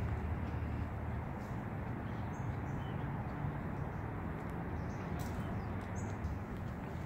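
Steady low outdoor background rumble, with a few faint, short high bird chirps.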